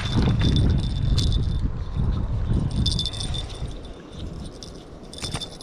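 Fishing gear being handled close to the microphone: rustling and light rattling as a plastic lip-grip tool and the rod are worked by hand to secure a landed fish. The handling is loudest for the first three seconds or so, then it eases off, with a few sharp clicks near the end.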